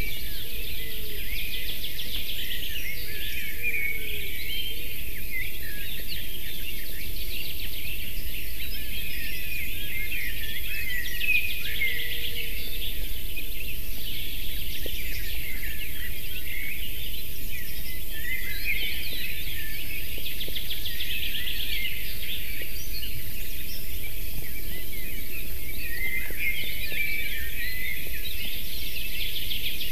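Birds singing in the surrounding forest: many overlapping high chirps and fast trills, over a steady hiss and low rumble from an outdoor microphone.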